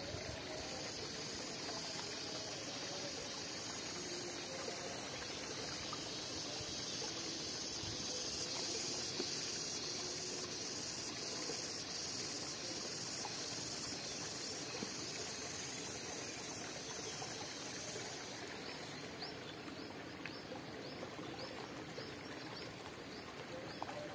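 Steady high-pitched insect chorus over field ambience; the chorus drops away about three-quarters through, leaving scattered short chirps.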